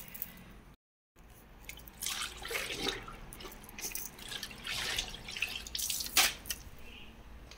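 Wet string mop worked in a plastic mop bucket of dirty water, then lifted out with water splashing and dripping onto a tiled floor, in a run of irregular wet sounds. A sharp knock just after six seconds in is the loudest sound.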